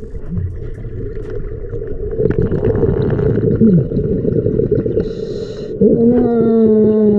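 Deep underwater rumble with brief moaning, whale-like glides. In the last second or so a loud, low drawn-out tone begins, sliding slowly downward.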